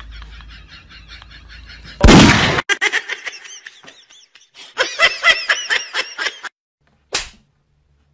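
Edited-in sound effects for a finger-gun trick with cats: a loud gunshot-like bang about two seconds in, among runs of short high-pitched squeaky sounds, with a brief pop near the end.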